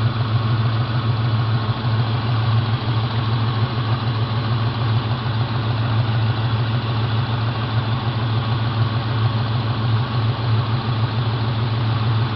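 A 1998 Ford Mustang's 4.6-litre V8 idling steadily.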